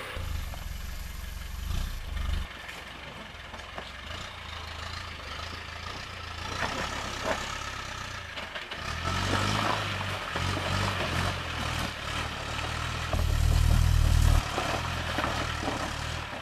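Land Rover Defender's engine working at low speed as it crawls over boulders, with repeated blips of throttle and a loudest surge of revs near the end. Occasional knocks and clatter come through over the engine.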